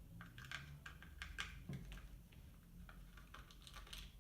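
Faint, irregular light clicks and taps of small plastic RC-car parts being handled, over a low steady hum.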